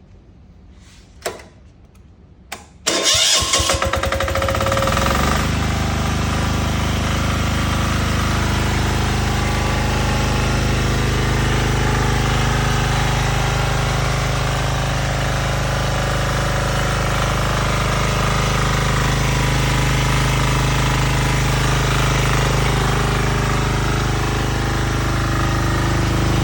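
Diesel engine on a generator or compressor set being started: two clicks, then the starter cranks and the engine catches about three seconds in, settling into steady running.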